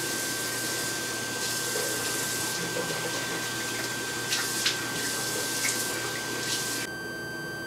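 Bathroom sink tap running steadily into the basin, with a few short splashes partway through; the water is shut off near the end.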